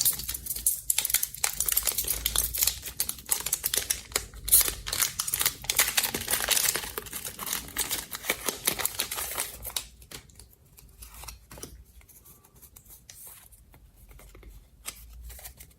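A Pokémon card booster pack's foil wrapper crinkling and being torn open: a dense run of crackles for about ten seconds, then only faint rustles and clicks.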